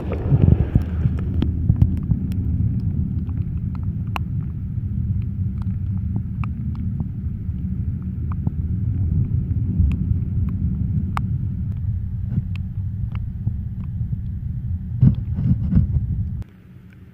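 Muffled underwater sound picked up by a camera held below the surface by a rock jetty: a dense low rumble of moving water with scattered sharp clicks. It cuts off suddenly near the end as the camera comes out of the water.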